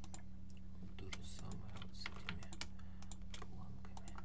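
Computer keyboard keys and mouse buttons clicking irregularly, most densely in the middle, over a steady low hum.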